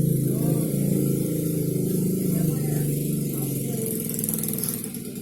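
Electric hair clipper's small motor running steadily, easing off slightly near the end.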